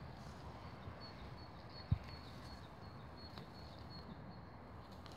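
Quiet open-air ambience: a low rumble of wind on the microphone, a faint high-pitched chirp repeated in short dashes, and a single dull thump about two seconds in.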